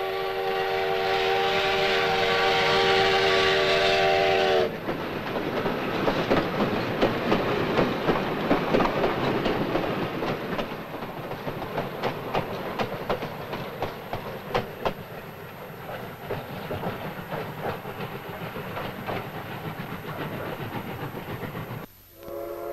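Steam locomotive whistle blowing a steady chord of several notes for about four and a half seconds, then the train running along the rails with a dense rattling clatter. Just before the end the clatter stops and the whistle chord sounds again.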